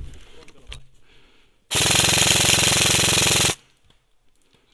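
Ares Amoeba 009 airsoft electric rifle firing one full-auto burst of about two seconds: a rapid, even rattle of shots that starts about two seconds in and cuts off sharply.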